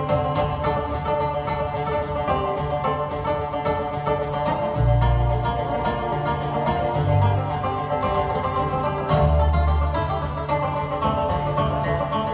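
Live band playing a fast bluegrass-style banjo instrumental: two banjos picking rapid notes over acoustic and electric guitar, with bass guitar and drums underneath.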